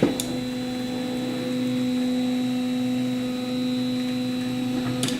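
Stepper motors of an A8 3D printer running during a Home All move: a steady whine that starts with a click and cuts off abruptly near the end.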